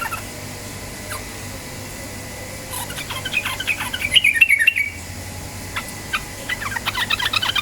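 Yellow-vented bulbul (trucukan) singing in two bursts of rapid, chattering notes, one about three seconds in and another near the end.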